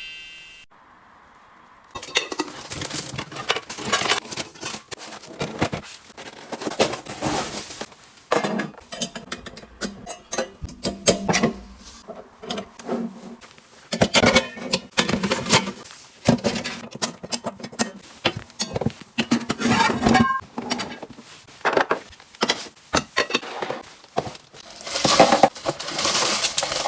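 Household goods being handled and arranged, starting about two seconds in: many short knocks, clicks and clinks of containers and items being picked up and set down, with some rustling, at an uneven hand-working pace.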